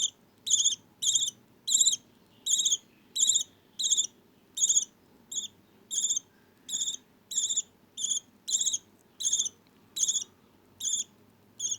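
A baby budgie chick begging while being syringe-fed, giving short, high chirps in a steady rhythm of about one every half second.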